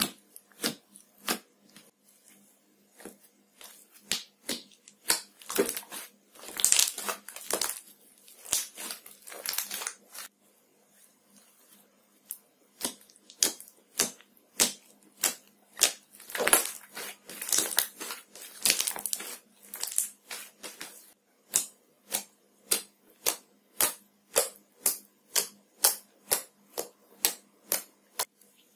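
Fluffy slime made from toothpaste and Fevicol PVA glue being squeezed, kneaded and poked by fingers: a run of sharp, sticky clicks and pops as air pockets burst. The pops come thick and crackly in two stretches in the middle, then settle into an even series of pokes about two a second near the end.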